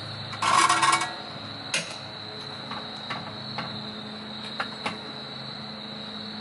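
Metal tools and jack parts clanking on a concrete driveway during a suspension job: a rattling clatter about half a second in, then several lighter separate knocks.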